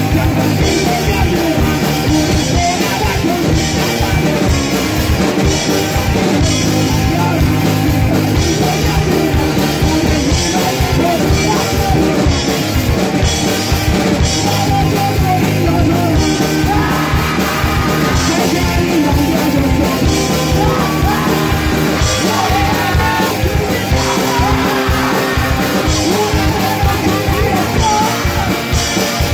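Punk rock song played by a full band, with electric guitar, bass and driving drums under yelled singing.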